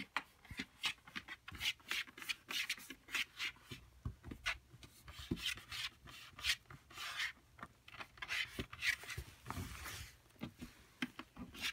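Fingers scratching and rubbing on the side of a cardboard box in short, irregular strokes, a few a second, with brief pauses between them.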